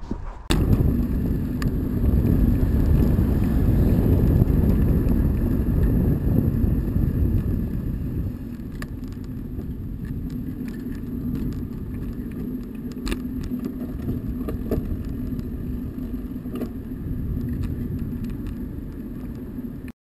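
Riding a loaded touring bicycle along a road: wind rushing over the microphone with tyre noise underneath and a few sharp ticks. It is loudest for the first several seconds, then settles somewhat lower.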